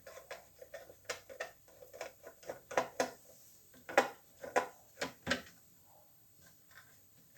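Irregular clicks, knocks and clatter of washing-machine parts and tools being handled during disassembly, loudest a little past the middle.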